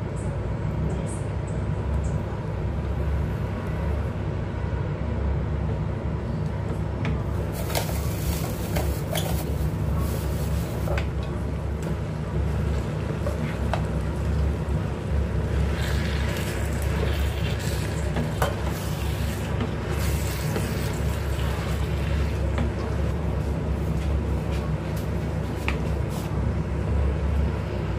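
Wooden spatula stirring and scraping through a pan of thick sauce, with stretches of scraping and light clatter around the middle as chicken pieces are scraped off a plate into the pan. A steady low hum runs underneath.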